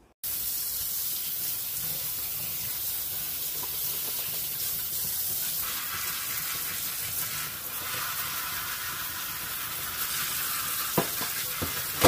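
Kitchen tap running, water splashing onto a dishwasher's stainless mesh filter held under the stream in the sink as it is rinsed. A few light knocks come near the end as the filter is handled.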